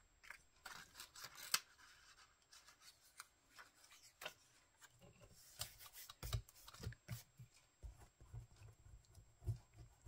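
Faint rustling and crackling of paper cut-outs being handled and set down on a cutting mat. From about six seconds in, a hand rubs and presses a glued piece flat on the gluebook page, giving soft dull thumps.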